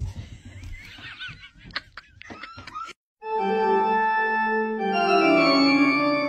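Sustained organ chords start abruptly about halfway in and hold steady and loud, several notes at once, shifting once or twice. Before them come a few faint clicks and short wavering squeaks, then a moment of silence.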